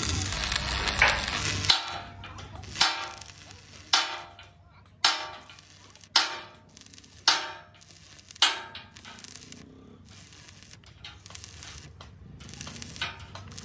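Stick-welding arc crackling for about the first two seconds, then music with a slow, even beat of ringing struck notes about once a second.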